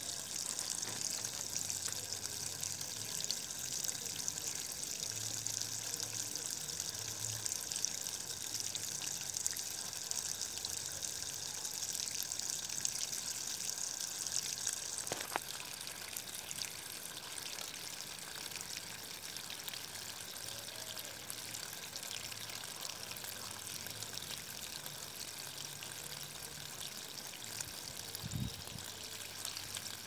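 Small garden waterfall: a thin stream of water pouring and splashing onto wet bark and stones, a steady trickling rush that grows a little softer about halfway through.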